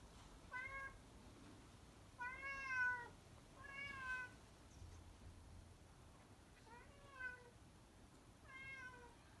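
Domestic cat meowing five times, each meow about half a second long and rising then falling in pitch, spaced a second or more apart.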